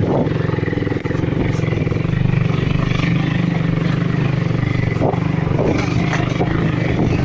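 Small motorcycle's engine running at a steady pitch while it is ridden over a rough dirt track. There are a few brief knocks, about a second in and again around five seconds in.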